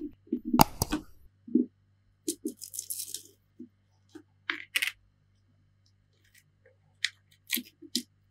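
Plastic opening pick clicking and scraping along the edge of an iPhone 7's display as the adhesive-sealed screen is pried loose: scattered sharp clicks and short scrapes, with a pause of about two seconds near the middle.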